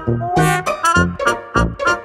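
Upbeat background music with a bouncy swing beat and brass and piano notes.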